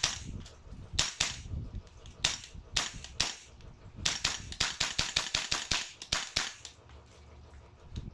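Tokyo Marui MWS gas blowback airsoft rifle firing: a handful of spaced single shots, then a quick string of about a dozen shots at roughly four or five a second. Each shot is a sharp crack of the gas and the bolt cycling.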